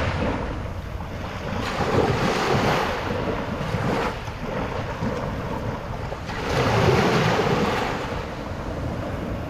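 Small waves breaking and washing up over a shallow pebbly beach, with wind rumbling on the microphone. The wash swells louder about two seconds in and again around seven seconds.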